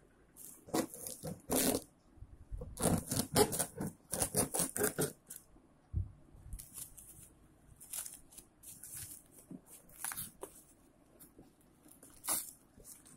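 Plastic bubble wrap on a cardboard parcel crinkling and tearing as it is cut and pulled open with a knife, in irregular bursts of rustling that are loudest in the first half.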